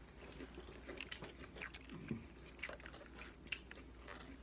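Close-up chewing on battered, deep-fried onion rings, with a scatter of short, soft crunches.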